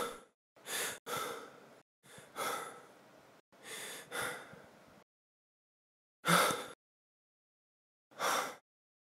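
A man breathing hard after waking from a nightmare. A run of quick, heavy breaths lasts about five seconds, then after a pause come two single breaths a little under two seconds apart.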